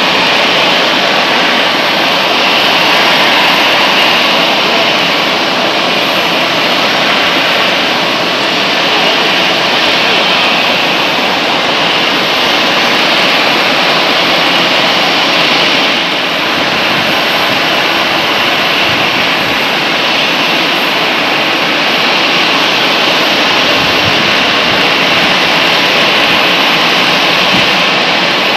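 Steady jet engine noise on an airport apron: an even, unbroken rush with a faint high whine over it.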